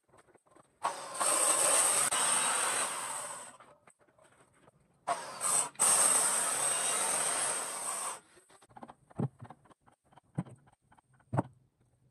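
A power tool working wood, switched on and off in three bursts of one to three seconds, each a dense rushing noise. It is followed by a few scattered knocks of wood being handled, the sharpest near the end.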